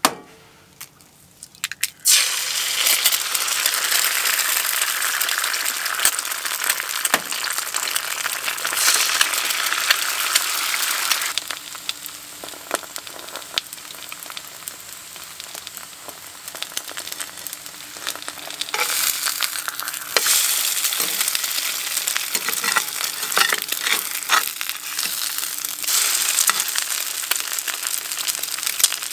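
Breakfast food sizzling in a hot frying pan. The sizzle starts suddenly about two seconds in, eases off a little around the middle, picks up again about two-thirds of the way through, and has scattered small clicks.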